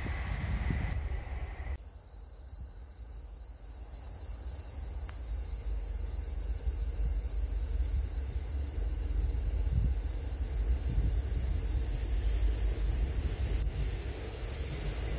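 Steady chorus of insects chirring over a low, steady rumble. In the first two seconds a broader rumbling noise, the tail of a passing train, cuts off suddenly.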